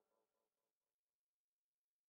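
Near silence: the very faint tail of a fading song dies away in the first half second, then nothing at all.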